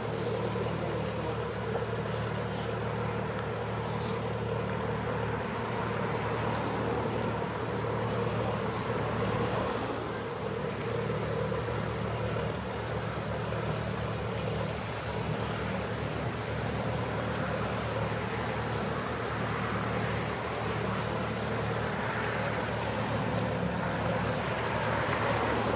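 Motor cruiser's inboard engine running at low speed close by, a steady low hum that grows a little louder near the end as a boat passes. Short high bird chirps come and go over it.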